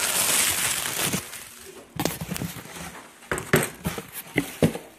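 Plastic bubble wrap crinkling as it is pulled off a small cardboard box, followed by a scatter of sharp crackles and knocks as the wrap and box are handled.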